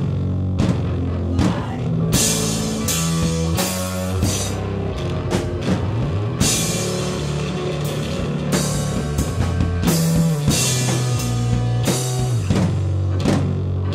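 Live rock band playing loudly: drum kit, bass guitar and electric guitar. Cymbal crashes wash in about two seconds in and again after six seconds.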